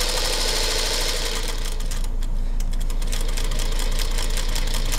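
Singer Featherweight 221 electric sewing machine running at speed while stitching fabric: a steady, rapid clatter of the needle mechanism over a quiet motor. The freshly oiled machine is still a little click-clacky. The stitching eases off briefly about two seconds in, then picks up again.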